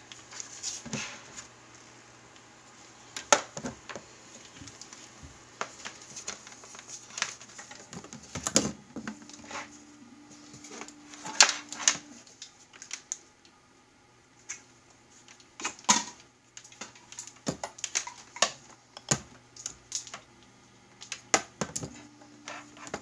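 Irregular clicks, taps and knocks of hard objects being handled and set down on a work surface, a few of them sharp, over a faint steady low hum.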